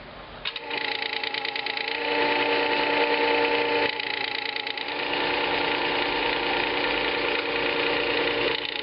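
Motor-driven disc sharpener running with a 1000-grit abrasive disc, a chisel's steel grinding against the spinning disc. It starts about half a second in and stops just before the end, a steady motor hum under a gritty scraping.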